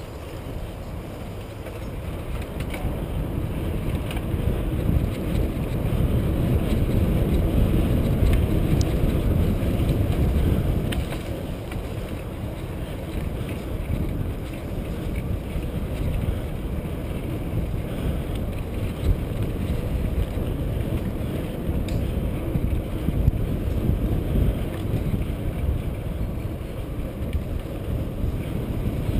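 Wind buffeting a moving mountain bike rider's camera microphone, mixed with the rumble and rattle of riding a bumpy dirt singletrack, with scattered small knocks. It is loudest for several seconds in the first part, then eases a little.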